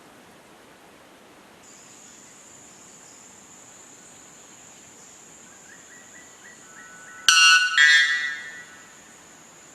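Insects trill with a steady high tone over a faint background hiss, joined by a few small rising chirps. About seven seconds in, a loud two-part pitched call cuts in sharply, then fades over about a second.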